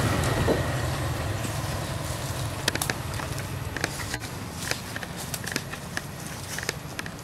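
Low engine hum of a road vehicle fading away over the first few seconds. After that come irregular short, sharp clicks and taps.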